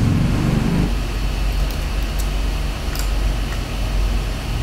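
Steady low background hum of room noise, with a few faint short clicks.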